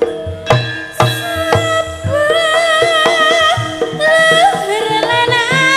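Live Javanese gamelan music with kendang hand-drum strokes. A female singer comes in about two seconds in, holding long notes with a wavering vibrato.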